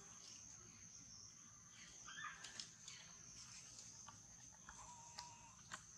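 Faint outdoor ambience: a steady high-pitched insect drone, with a few soft clicks and a short animal call about two seconds in.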